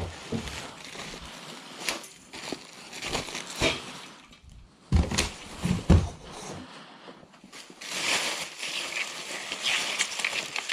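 Plastic wrap and bubble wrap crinkling and being crumpled by hand, with cardboard packaging handled. There are a couple of dull knocks around five to six seconds in, and the crinkling grows denser near the end.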